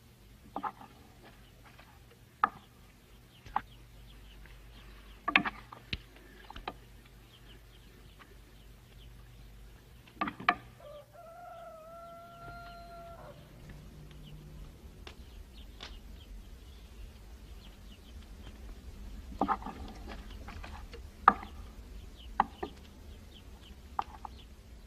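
Spoons clinking and scraping against plates as two men eat, in sharp irregular clinks every second or two. A rooster crows once, drawn out, about eleven seconds in.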